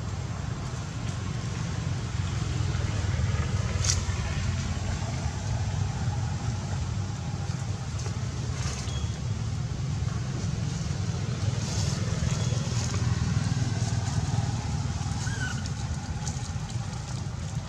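Steady low outdoor rumble with no clear engine note, and a single sharp click about four seconds in.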